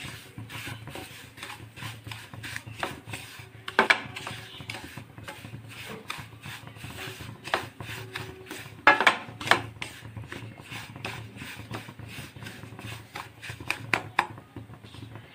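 Wooden spatula scraping and knocking against a pan in repeated stirring strokes, with a few louder knocks about 4 and 9 seconds in, as semolina is roasted in ghee.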